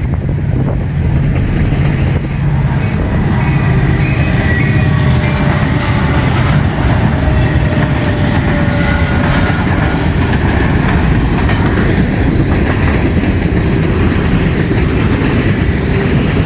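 CN train rolling past close by, a loud steady rumble of wheels on rail, with faint thin squeals from the wheels coming and going.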